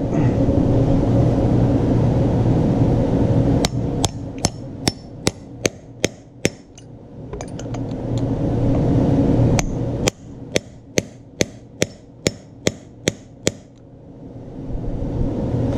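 Hammer blows on a 7/8-inch deep socket, driving a frozen bearing into its seat by the outer race. The sharp taps come in two runs of about eight and eleven, two to three a second, after a few seconds of steady background noise.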